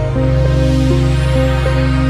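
Background music: electronic, new-age style synth notes held and changing every half second or so over a steady deep bass.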